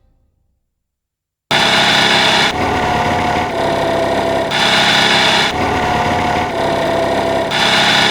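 Small Honda Dio 50cc two-stroke scooter engine idling, cutting in abruptly after a second and a half of silence. A hiss over the engine swells and fades every second or two.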